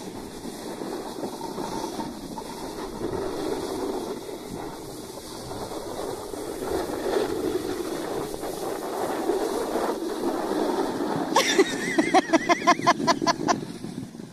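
Snowboard sliding and scraping over packed snow, a steady rushing hiss mixed with wind on the microphone. Near the end, a person's voice breaks out in a short run of quick, repeated bursts.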